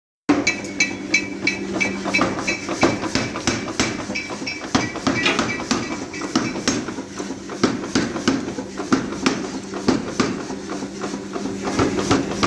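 Hammers striking metal in a forge, many rapid blows a few times a second. Through the first half the strikes ring metallically. A steady low machine hum runs underneath.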